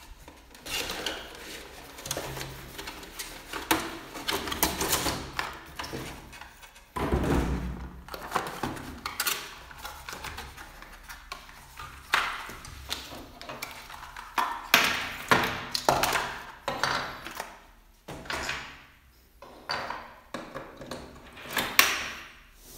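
Hands handling cardboard packaging and plastic parts: boxes and inserts rustling and scraping, and a power adapter and its plug attachments set down with light knocks and clicks. A heavier thump comes about seven seconds in.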